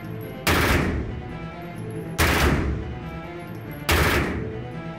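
Three gunshot sound effects about 1.7 seconds apart, each sudden and fading out over about half a second, over steady background music.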